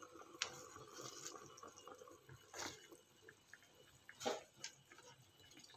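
Chicken broth simmering in a pan: faint bubbling with a few brief pops.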